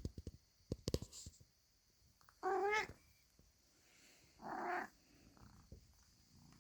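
A domestic cat gives two short, pitched calls with a slight waver, about two and a half and four and a half seconds in. They come after a few soft knocks in the first second or so.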